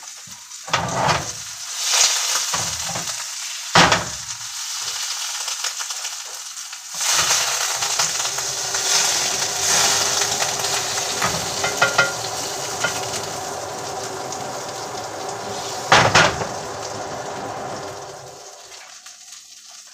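Pancakes sizzling in a frying pan, with a few sharp knocks and scrapes of a spatula against the pan. The sizzle swells about a third of the way in and fades near the end.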